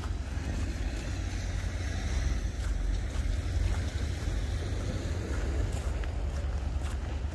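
A boat's engine running as a steady low rumble, with a rushing hiss that swells and fades over the middle few seconds. Faint footsteps on the quay are heard near the start and end.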